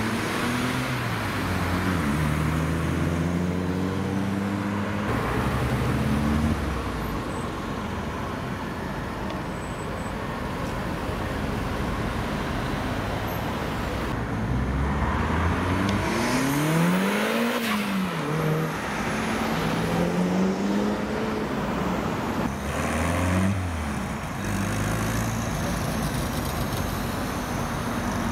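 Cars pulling away and driving past one after another, engines revving up and dropping back again and again, with tyre and road noise underneath.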